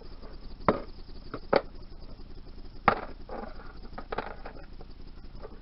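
Several sharp, separate metallic clicks and taps of small engine parts and tools being handled as the remaining clutch push rod is worked out of a Yamaha DT125R two-stroke engine's clutch side.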